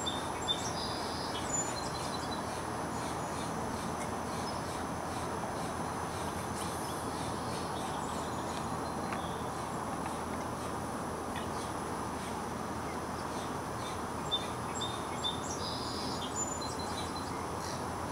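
Outdoor ambience: a steady low rushing background, with short high bird chirps in the first couple of seconds and again near the end, and a few faint clicks.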